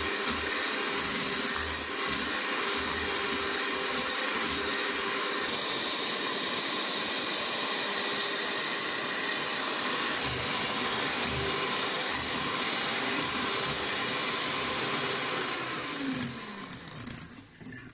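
Electric hand mixer running steadily, its beaters whipping eggs and sugar in a glass bowl. Near the end it is switched off and the motor's hum falls in pitch as it winds down.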